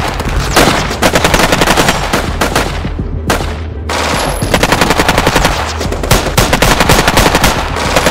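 Rapid automatic-gunfire sound effects, machine-gun bursts fired in quick runs with short breaks, laid over the picture, with a steady low hum underneath.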